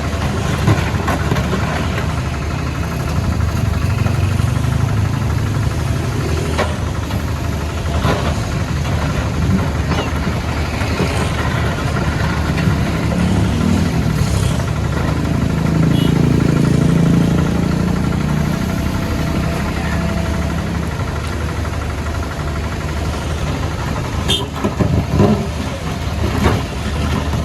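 Diesel engine of a CAT 462F backhoe loader running steadily, pulling harder for a few seconds around the middle, with scattered sharp knocks and clanks over the top.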